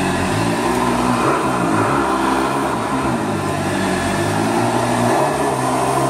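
1976 Eureka WideTrack upright vacuum cleaner running on low speed over carpet: a steady motor hum and rush of air, its pitch shifting slightly up and down as the vacuum is pushed and pulled.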